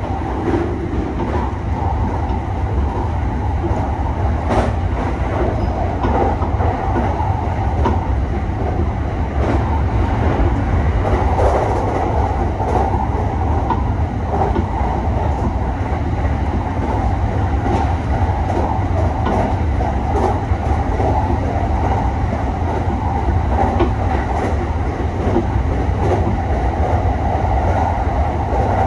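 Electric commuter train running at speed, heard from inside the front car: a steady rumble with the wheels clicking over rail joints now and then.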